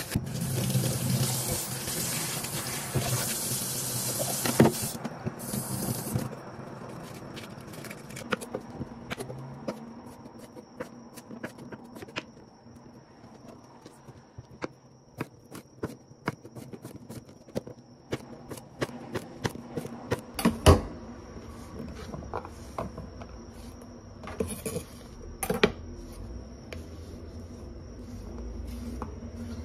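Kitchen tap water running for the first few seconds as lettuce is washed at the sink. Then a kitchen knife slices a cucumber on a wooden cutting board: a string of quick, sharp taps of the blade on the board, with one louder knock about two-thirds of the way through.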